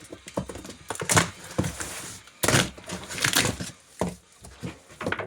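Packaging of a heavy boxed machine vise being opened and pulled about: irregular scrapes, crinkles and knocks, with louder bouts of rustling about a second in and again in the middle.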